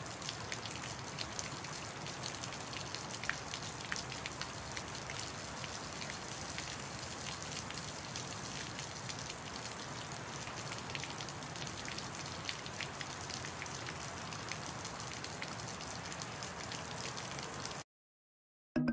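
Steady rain sound: an even patter and hiss with scattered sharp crackles, played as a web page's looping background ambience. It cuts off abruptly about a second before the end.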